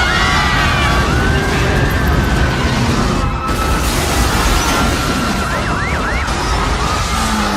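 Sirens wailing over a dense, loud rumbling din, with a quick up-and-down yelp of pitch about six seconds in.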